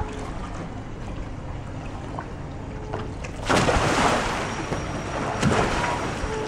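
Water splashing and sloshing as a sea kayak capsizes and is rolled back upright, starting suddenly about halfway through with a second surge near the end as the paddle sweeps and the kayak comes up; before that only gentle lapping of water.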